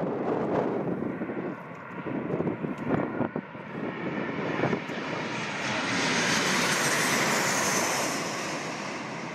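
Boeing 737 jet airliner on final approach passing low overhead. Its engines grow from faint to a loud roar with a high whine that peaks about six seconds in, then begin to fade, with wind buffeting the microphone in the first few seconds.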